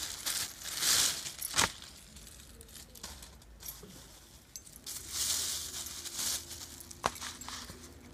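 Thin plastic bag crinkling and rustling in irregular bursts as a bunch of leafy greens is pulled out of it onto a bamboo winnowing tray. A sharp tap comes near the end.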